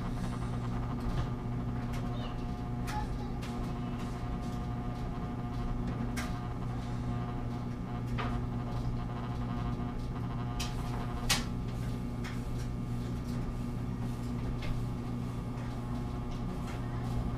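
Steady low hum with a few faint, short clicks and taps from hands working wire and solder.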